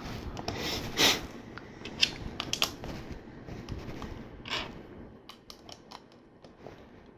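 LEGO bricks and plates being handled and pressed together: scattered light plastic clicks and rattles, with a louder rustle about a second in and a quick run of sharp clicks a little after five seconds.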